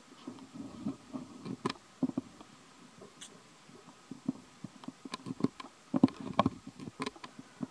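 Soft wet clicks and smacks of a baby macaque chewing food close to the microphone, in irregular clusters with a quiet stretch of about two seconds in the middle.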